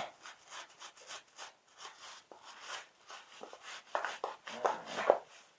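Scrubbing the oily outside of an LS V8 engine with hot soapy water: a run of short rubbing strokes that get quicker and louder about four seconds in.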